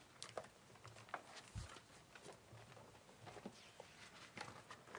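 Faint rustling and light ticks of paper pages being turned in a small room, with one soft low thump about a second and a half in.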